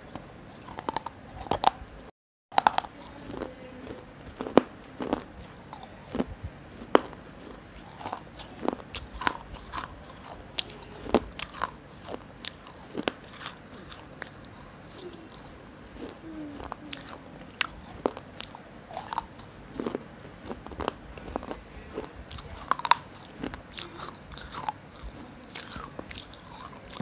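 Close-up biting and chewing of a broken clay kulhad (terracotta cup): sharp, irregular crunches about once or twice a second, with chewing in between. The sound cuts out for a moment about two seconds in.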